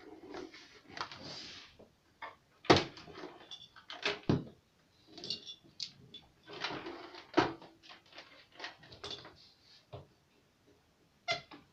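Plastic case of a Yamaha DD-6 electronic drum unit being handled, turned over and set down on a wooden table: irregular knocks and bumps with scraping in between. The loudest knock comes about two and a half seconds in.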